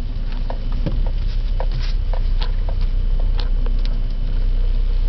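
Toyota car heard from inside the cabin while being driven: a steady low rumble with scattered light clicks and taps.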